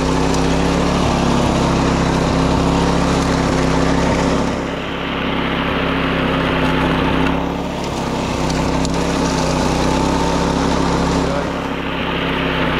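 Wing mower's small engine running steadily under load, its upper hiss thinning out and coming back three times.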